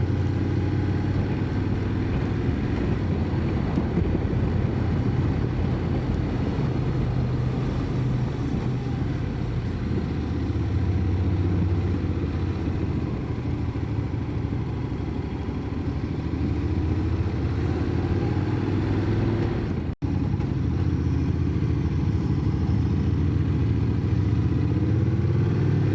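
Motorcycle engine pulling up a steep climb, its pitch rising and falling with the throttle through the bends. The sound drops out for an instant about three-quarters of the way through.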